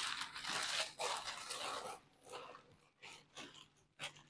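Sheets of newspaper being folded and crumpled by hand: a dense rustle for the first two seconds, then a few scattered crinkles as the paper is balled up.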